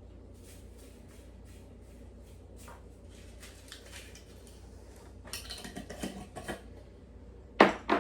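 Kitchen handling sounds while a tablespoon of onion powder is measured out: light rustling, then a cluster of clinks and scrapes, and two sharp knocks near the end, the loudest one first.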